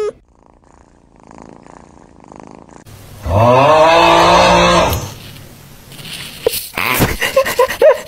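Domestic cat giving a long, loud yawning meow about three seconds in, its pitch rising and then falling. Near the end it makes a quick run of short squeaky chirps.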